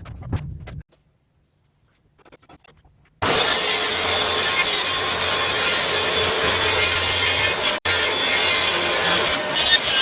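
Woodworking power tool cutting red oak: a loud, continuous cutting noise with a steady hum that starts abruptly about three seconds in, after a moment of quiet.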